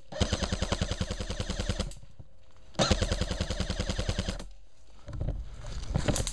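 Airsoft rifle firing on full auto in two long, rapid bursts, the first about two seconds and the second about a second and a half. Irregular rustling and footsteps follow as the shooter moves off.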